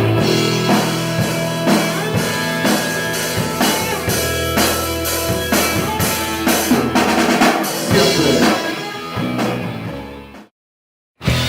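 Rock band recording in an instrumental passage, with drum kit, bass and guitars and no singing. It fades out about ten seconds in, breaks off in a moment of silence, and music starts again just before the end.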